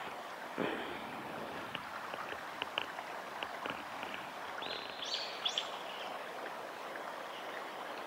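Shallow stream running steadily over gravel, with a few short, high bird calls about five seconds in.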